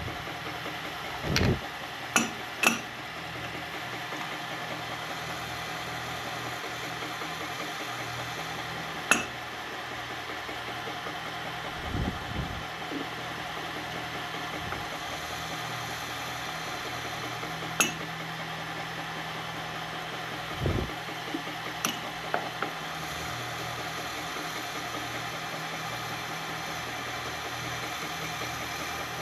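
Milling machine spindle running steadily while an end mill cuts a carbon fiber handguard, with about eight short clicks and knocks scattered through.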